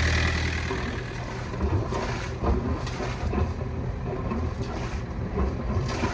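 Sailboat's inboard engine idling steadily, cutting out about a second in. Irregular low rumbling and knocks follow.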